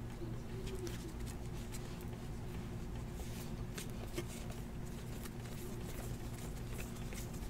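2017-18 Donruss basketball trading cards being flipped through by hand one at a time, a string of light, irregular card clicks and snaps over a low steady hum.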